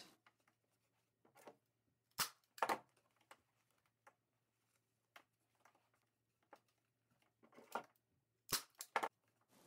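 Cheap manual staple gun firing 3/8-inch staples through upholstery fabric into a wooden seat base: sharp snaps, two about two seconds in and several more close together near the end.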